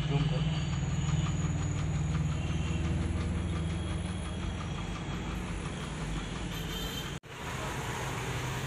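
Godrej tea vending machine running as it dispenses tea: a steady mechanical hum with a fast rhythmic pulsing, which briefly cuts out about seven seconds in.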